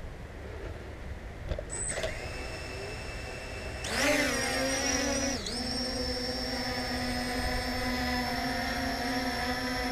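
Ao Sen Ma CG035 quadcopter's brushless motors spinning up about four seconds in and lifting it off in manual mode, then a steady hovering whine that briefly dips in pitch a second and a half after start-up.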